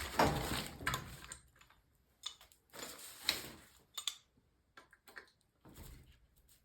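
A wrench turning a threaded pipe fitting tight, giving a few separate bursts of metal-on-metal scraping and creaking as the threads are forced together.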